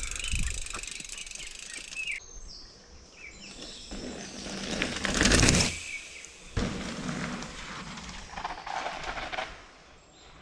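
Outdoor woodland ambience, shifting abruptly about two seconds in, with a louder rush of noise around the middle.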